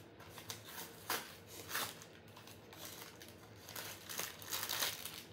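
Plastic snack packaging crinkling in short, irregular bursts, busier near the end.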